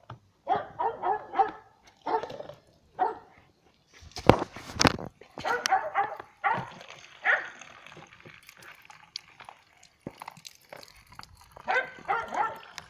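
A dog barking and yipping in short bursts, again and again, with a loud knock about four seconds in.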